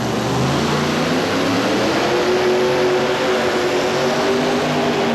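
A modified pulling tractor's engines at full power under load during a pull. The loud engine note climbs over the first couple of seconds, then holds steady.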